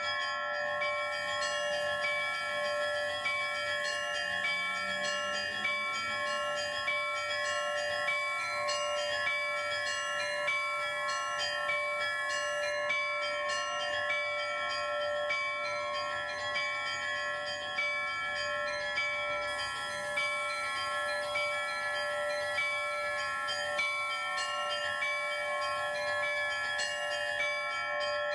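Several church bells rung together in a continuous peal. Smaller, higher bells are struck over and over in a quick pattern above the long, sustained ring of the larger bells.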